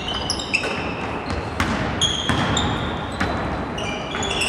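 Basketball play: sneakers squeaking on the court floor in many short high chirps, with the ball bouncing several times.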